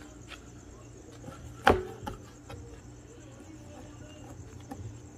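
A kitchen knife cutting garfish chunks on a plastic cutting board. There is one sharp knock of the blade on the board about two seconds in, and a few lighter taps around it.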